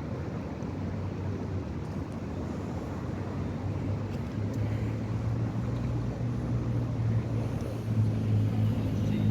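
Low, steady engine drone of a passing vessel, holding one deep pitch and growing louder as it comes closer.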